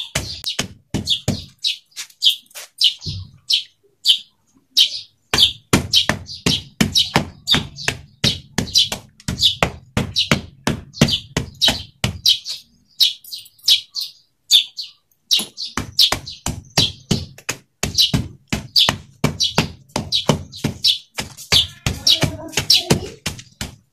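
Dry clay lumps being pounded and crushed by hand, one large lump knocked down again and again onto a pile of smaller ones: quick runs of sharp knocks and crunches with short pauses in between. The clay is being broken down toward a fine powder to be soaked for a clay wash.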